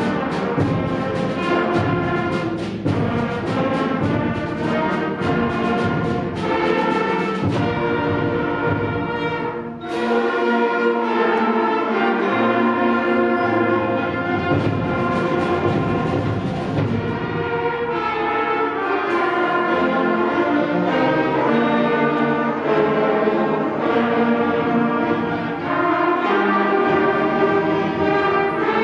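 Middle school concert band playing a holiday fanfare: brass melodies over rhythmic percussion strikes, a brief dip about ten seconds in, then sustained brass chords.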